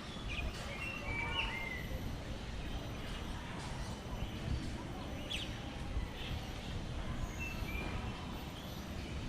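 Birds in a walk-in aviary giving short scattered chirps and whistles, a cluster near the start and single calls later, including one quick falling whistle about halfway through, over a steady low background noise.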